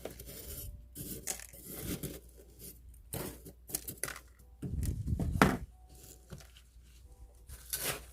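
Hands working succulents and potting soil into a pot: scattered small clicks, rustles and scrapes, with a heavier scraping burst about five seconds in.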